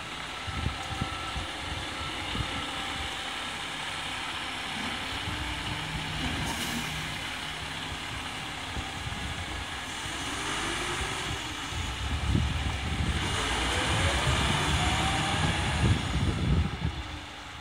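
Diesel engine of a fire-department hazardous-materials truck running as the truck makes a slow U-turn. The engine rises in pitch and grows louder from about two-thirds of the way in as it picks up speed, then drops just before the end.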